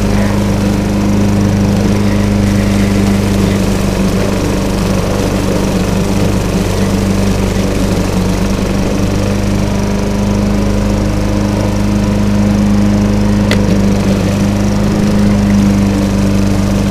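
Walk-behind lawn mower running steadily at constant speed while being pushed across the grass, with one sharp tick about thirteen seconds in.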